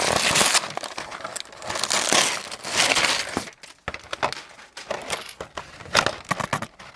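Wrapping paper being torn open and crumpled by hand, in several rustling bursts during the first half. Scattered small clicks and rattles follow in the second half.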